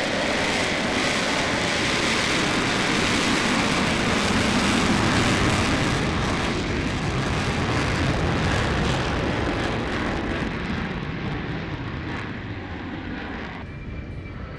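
F-35B's single Pratt & Whitney F135 afterburning turbofan at takeoff power, in afterburner, as the jet rolls and lifts off: a loud roar. About ten seconds in it begins to fade and lose its high end as the jet climbs away.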